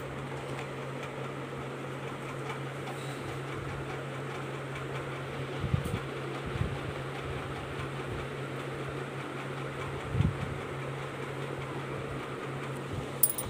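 Steady low mechanical hum with an even rush of air noise, like a running fan. There are a few soft low thumps about six seconds in and again around ten seconds, and a brief sharp click near the end.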